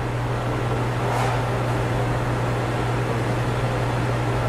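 Steady low machinery hum over a constant noise, from equipment running in a brewery tank room.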